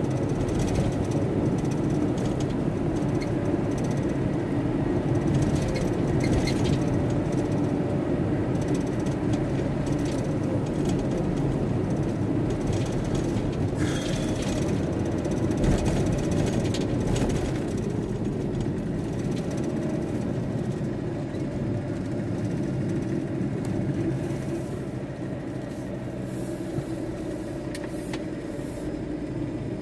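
VW T4 Transporter van engine and road noise heard from inside the cab while driving, a steady low rumble that eases off somewhat in the second half.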